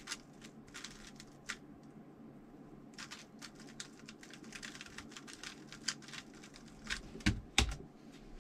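A 3x3 Rubik's cube being turned quickly by hand, giving runs of sharp plastic clicks. Near the end come two louder thumps on the desk as the solve ends and the timer is stopped.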